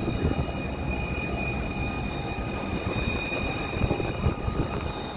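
Fire engine running at the scene: a steady low engine rumble with a constant high whine over it.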